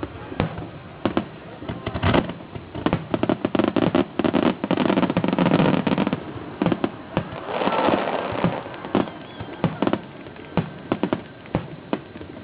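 Aerial fireworks exploding in a rapid, irregular string of bangs and crackles. They come thickest about three to six seconds in, followed by a hissing, crackling spell near eight seconds.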